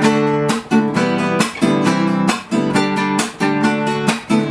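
Nylon-string classical guitar strummed at full tempo in a steady down, up, slap, up pattern: ringing chords broken by short percussive slaps of the nails on the lower strings.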